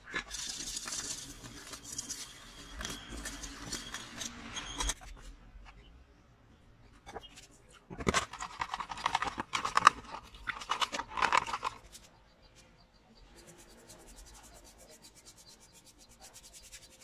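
A metal paint tin and its lid are handled and scraped, then a spell of knocks and clinks from the tin and a plastic tub. Near the end comes a faint, quick, even scratching as a paintbrush strokes paint onto the rusty metal mower deck.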